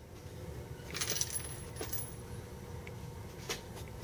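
A few light metallic clinks of small metal pieces being handled at a shooting bench: about a second in, again near two seconds, and once more near three and a half seconds.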